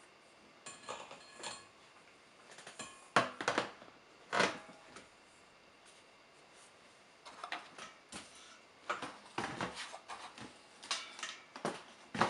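Irregular clicks, knocks and light clatter from an ash vacuum cleaner being handled and turned, its plastic motor head and stainless-steel tank knocking, the loudest knocks a little over three and four seconds in.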